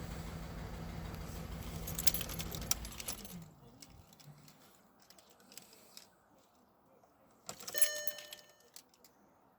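VW Polo 1.2 three-cylinder petrol engine idling with a cylinder 1 misfire, then switched off about three seconds in, its hum winding down to a stop. Keys jangle just before the engine stops, and a short electronic beep sounds near the end.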